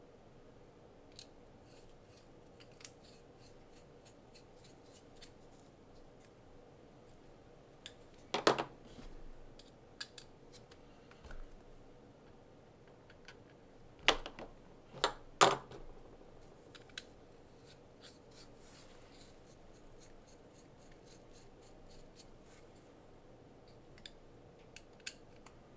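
Small RC car parts and a screwdriver handled and set down: faint scattered ticks, with a sharp click about eight seconds in and three louder clicks in quick succession in the middle.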